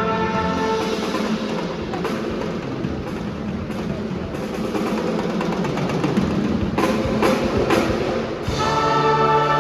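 Marching band playing. A held brass chord drops out within the first second, leaving the drum line alone with drum rolls on snare and bass drums. Three sharp hits come near the end, and the brass comes back in with a loud held chord.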